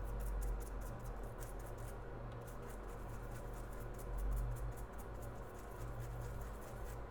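Rapid light scratching and ticking as a desoldered A13 CPU chip is wiped and handled on the repair bench, over a steady low hum.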